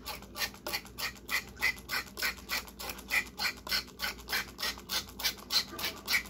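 Plastic trigger spray head on a soda bottle pumped rapidly, squirting water into a small sanitizer bottle: an even run of short spray strokes, about three to four a second, each a brief hiss with a squeak.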